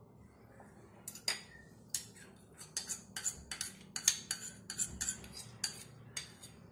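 Steel spoon clicking and scraping against a plastic cup and a steel mesh strainer while pushing soaked sesame seeds out of the cup: an irregular run of sharp clicks, two or three a second, starting about a second in.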